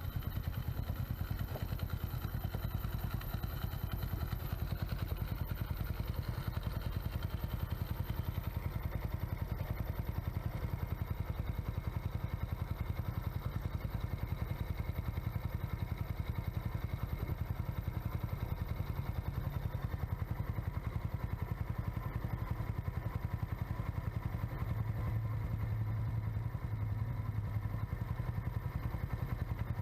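Kymco Visa R motorcycle's single-cylinder four-stroke engine idling steadily, its primary clutch fitted with new rubber dampers and clutch weights.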